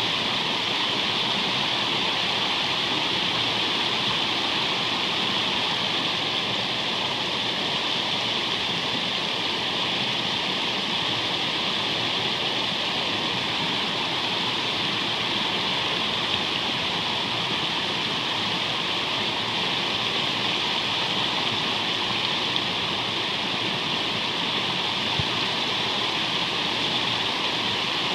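Steady rush of whitewater spilling over the rocks of a river shoal.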